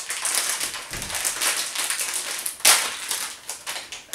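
A plastic candy bag crinkling and crackling as it is handled and worked open by hand, with one loud sharp crackle about two and a half seconds in.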